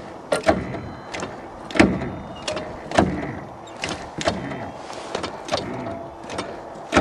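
Sharp, irregular metallic clicks and knocks, about a dozen over several seconds, some ringing briefly, from the old dozer just after its starting battery has proved dead.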